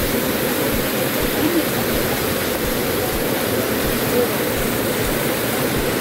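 Waterfall water rushing over rock shelves close by, a loud, steady rush with faint voices under it.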